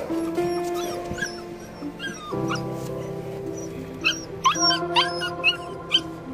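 Young puppies whimpering: several short, high, rising squeals, most of them in the second half, over background music with sustained chords.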